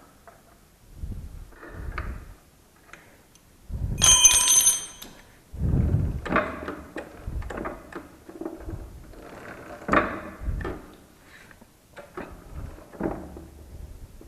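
Metal tools clinking and knocking as a wrench tightens a nut on a motorcycle's rear chain adjuster. About four seconds in, one bright metallic clink rings briefly; this is the loudest sound. Duller clunks and handling knocks come every second or two.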